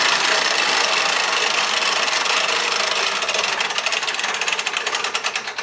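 Hand-cranked winches on a portable boat lift being wound to raise a boat: a loud, dense, rapid clicking clatter whose separate clicks grow more distinct in the second half.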